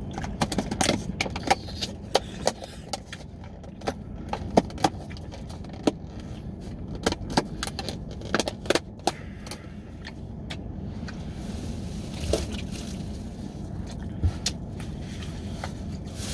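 Close-miked chewing and eating: irregular wet mouth clicks and smacks, thick through the first half and sparser later, over a steady low background rumble.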